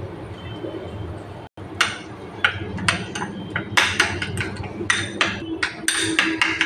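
Metal spoon stirring salad dressing in a glass bowl, clinking against the glass in a quick, irregular run of sharp clicks that starts about two seconds in.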